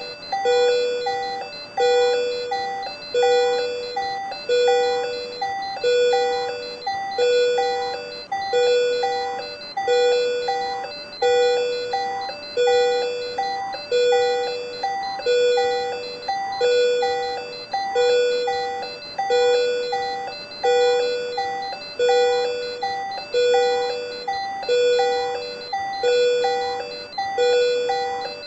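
Patient monitor alarm: a multi-tone electronic chime that repeats evenly about every 1.3 seconds, each one starting sharply and fading. It is sounding for an SVT (supraventricular tachycardia) rhythm.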